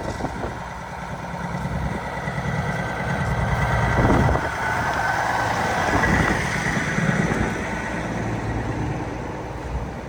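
Heavy diesel wrecker towing a semi truck drives past, its engine growing louder to a peak about four to six seconds in, then fading.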